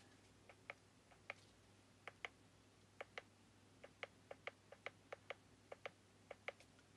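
Faint clicks of the push buttons on a Depstech DS300 endoscope's handheld screen unit, pressed over and over, often in quick pairs, stepping the camera's LED light brightness.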